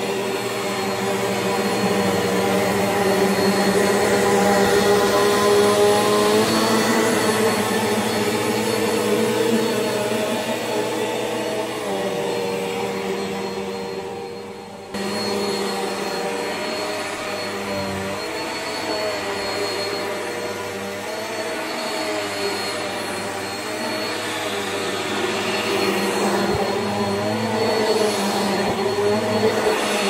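Bissell PowerForce Helix bagless upright vacuum with its 10-amp motor running steadily, its whine wavering slightly in pitch and loudness as it is pushed back and forth over thick shag carpet. About halfway through, the sound fades briefly and then comes back abruptly.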